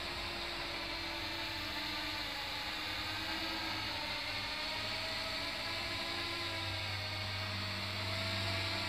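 Electric motors and propellers of a scratch-built foam multirotor shaped as a flying saucer, hovering: a steady whir with several tones that drift slowly up and down, growing a little louder near the end.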